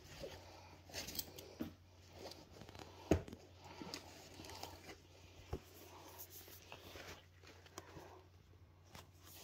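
Faint handling sounds of paperback books being moved and set down on a wooden floor: light rustles and a few scattered taps, the sharpest about three seconds in.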